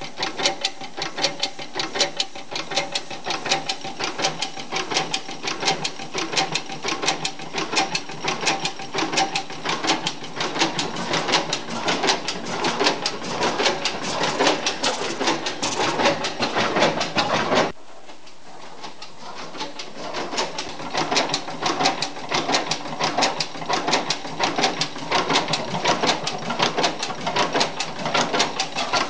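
1903 40 hp Union stationary gas engine running, with a fast, even mechanical clatter. The sound drops away suddenly about two-thirds of the way through, then builds back to the same clatter.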